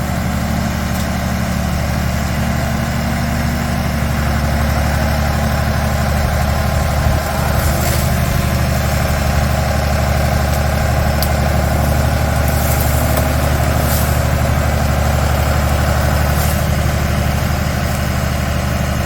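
Skid steer loader's engine running steadily, with a few brief knocks from the machine at work.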